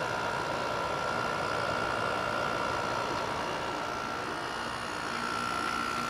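A 2000 Quasar Cool Look HQ2061FH window air conditioner (Panasonic-built, 6000 BTU) running, its compressor and fan giving a steady hum and rush of air with a faint constant whine.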